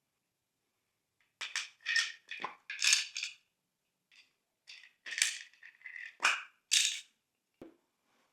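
Glossy slime being squished and worked, giving clusters of wet crackles and pops in two runs, with a short low thump near the end.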